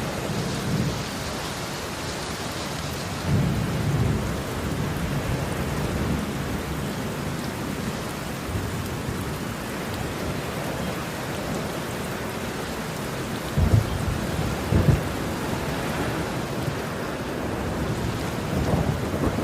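Heavy rain pouring steadily in a thunderstorm, with rumbles of thunder; a louder rumble swells a few seconds in, and two sharper, closer thunder cracks come about two-thirds of the way through.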